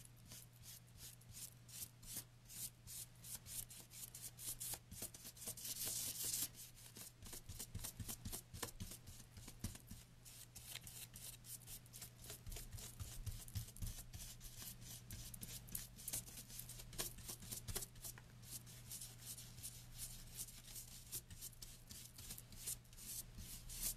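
Stiff flat paintbrush dry-brushing paint onto a bunny cut-out: quick, scratchy strokes of dry bristles dragged over the surface, many in a row.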